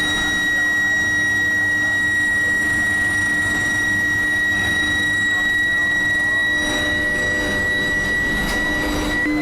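Steel billet induction heating furnace running, with a steady high whine and a lower hum over constant machinery noise.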